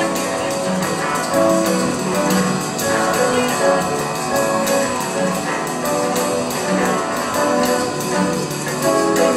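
Live band music: harmonicas playing sustained notes over an electric guitar, with maracas shaking a steady beat.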